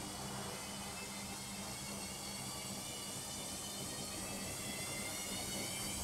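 LOGIK front-loading washing machine in its intermediate spin: the motor whines steadily with a low hum as the drum spins, slowly growing a little louder.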